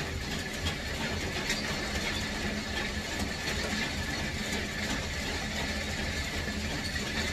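A steady low drone like an engine running, with scattered light clicks from work at the switchgear cabinet.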